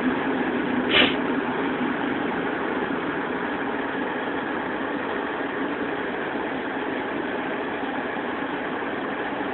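Car engine running with a steady hum, heard from inside the cabin, with a brief short sound about a second in.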